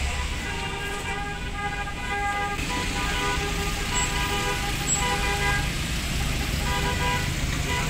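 Car horns honking in repeated blasts over the low rumble of vehicle engines.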